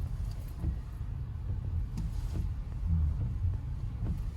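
Low, uneven rumble of a car moving slowly, with a few faint knocks.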